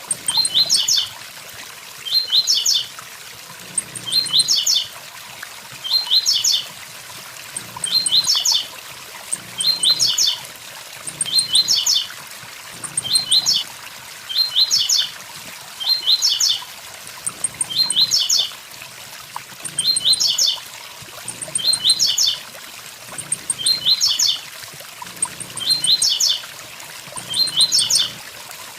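Blue-black grassquit (tiziu) singing its 'tui tui zel zel' phrase over and over, a short burst of quick high notes about every two seconds. A steady waterfall hiss runs underneath.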